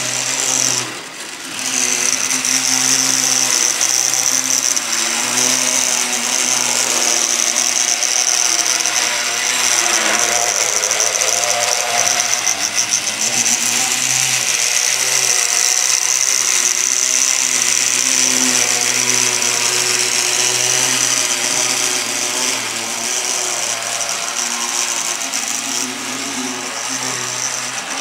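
Small electric motor unit and gearing of a die-cast model Blackpool tram running around its track, a steady high whine over a low hum. The sound dips briefly about a second in.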